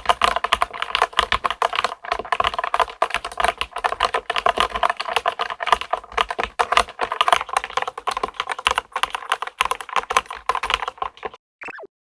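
Fast, continuous typing on a LEOPOLD FC660MBT mechanical keyboard, a dense run of key clicks that stops about eleven seconds in. A brief falling tone follows near the end.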